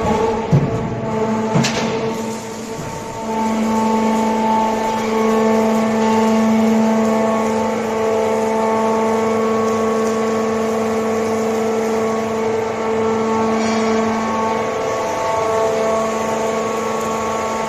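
Hydraulic power unit of a metal scrap baling press running, its electric motor and pump giving a steady hum with a whine on top. A few knocks and a sharp click sound in the first two seconds, and the hum settles and grows a little louder about three seconds in.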